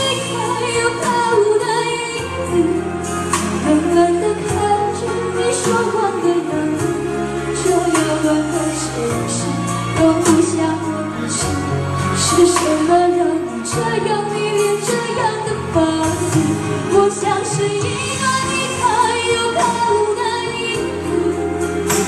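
A woman singing a Mandarin pop ballad into a microphone over backing music, heard through a PA system.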